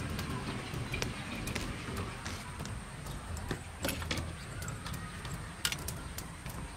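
Mushrooms tipped from a plastic basket onto a stainless steel tray and spread by hand, making light irregular taps and clicks on the metal, over a low steady rumble.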